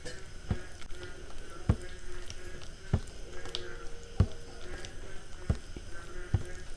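Bare fingers mixing and mashing soft khichuri with ghee on a steel plate: quiet wet squishing, with six soft low thuds about every second and a quarter as the hand presses down into the plate.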